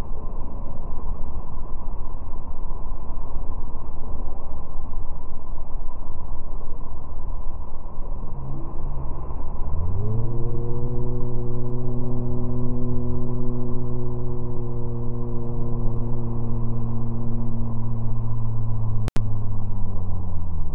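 Steady low rumble and rush of a motorboat running at speed through its own foaming wake. About halfway through, a low droning tone with a hum-like buzz rises in, holds steady, and dips away near the end, with a brief dropout shortly before it fades.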